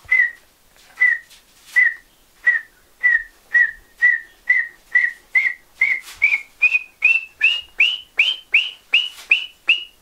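A man's mouth-whistled imitation of a male nhambu (tinamou) call, the kind used by hunters to lure the bird. It is a long series of about twenty short, clear whistled notes that come steadily faster and climb in pitch toward the end.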